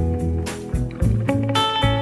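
Instrumental band music led by guitar, over bass notes and a regular drum beat.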